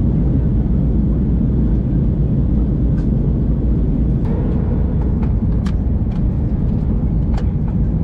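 Airbus A321 cabin noise in flight: a steady, loud low rumble of engines and rushing air heard from a window seat, with a few faint light clicks in the second half.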